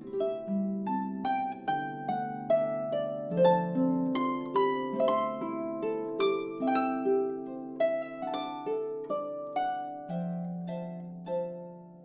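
Background music: a gentle melody of plucked-string notes, about two notes a second, with chords ringing under them. It dies away near the end.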